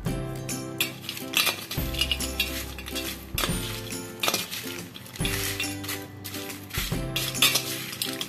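A plastic spoon stirring roasted peanuts and popped white corn in a stainless steel bowl, the nuts clinking against the steel, over background music with a steady beat.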